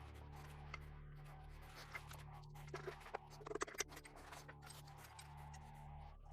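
Quiet background music made of a steady low drone. A short cluster of faint clicks and scrapes comes about three seconds in.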